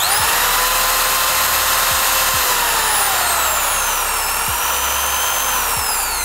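Makita HP2051 corded drill's 720 W brushed motor running at speed with a steady whine. About two and a half seconds in its pitch sinks, lifts slightly, then falls again near the end as the variable-speed trigger is eased.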